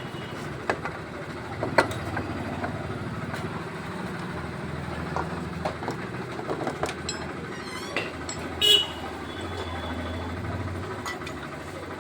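Street traffic with vehicle engines running steadily and scattered knocks and clatter. A short high horn toot about nine seconds in is the loudest sound.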